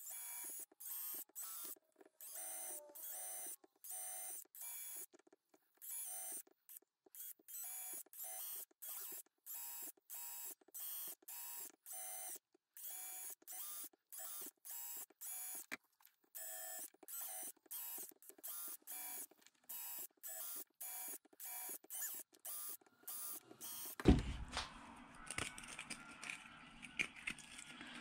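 DeWalt cordless drill with a 7/64-inch bit drilling a long string of small holes through a PVC pipe cap: many short bursts of motor whine, about two a second, each stopping abruptly. Near the end the drilling stops with a knock, followed by fainter handling noise.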